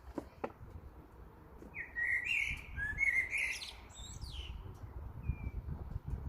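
A songbird singing one quick, warbling phrase about two seconds in, followed by a couple of short single notes.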